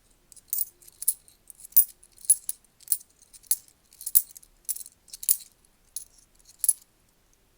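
10p coins clinking one at a time as they are sorted by hand, about eleven sharp metallic clinks at a steady pace of roughly one every half second or so.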